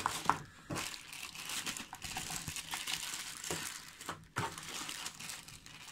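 Clear plastic bag crinkling as it is handled, with irregular crackles throughout and one sharp click near the start.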